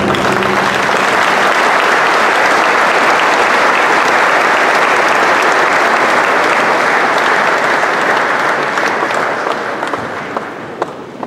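A large audience applauding steadily, the clapping dying away over the last couple of seconds.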